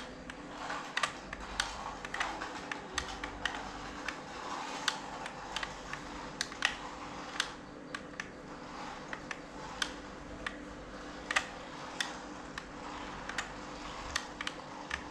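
Irregular light plastic clicks and taps, a few a second, from a pistol-grip RC car transmitter's throttle trigger and steering wheel being worked, over a faint steady hum.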